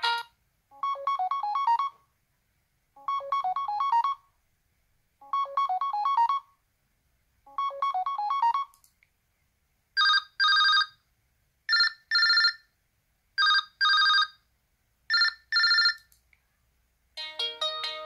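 LG Q7 smartphone ringtones played one after another. First a short rising melody repeats four times about every two seconds. Then a telephone-style double ring sounds four times, and a new, busier melody starts near the end.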